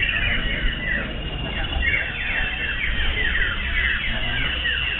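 Many common ioras singing at once, a dense chorus of quickly repeated, overlapping downward-sliding whistles.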